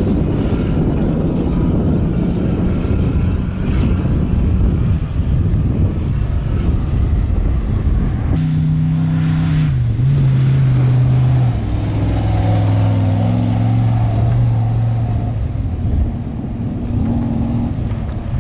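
Off-road race vehicle engine running, with dense low rumble for the first half. About 8 seconds in, a steady engine note comes through, drops in pitch about two seconds later and then holds steady.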